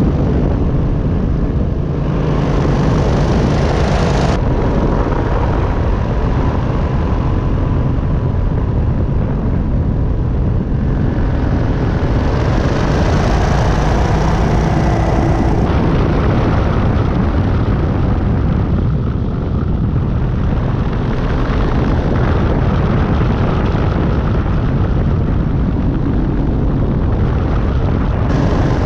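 Buckeye Dragonfly powered parachute trike in flight: its engine and propeller running steadily as a loud, dense rumble. The tone shifts abruptly a few times.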